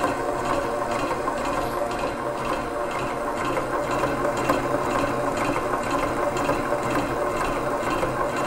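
Stand mixer running steadily at its top speed 6, a silicone-edged beater creaming butter and sugar in the bowl: an even motor whir with no change in speed.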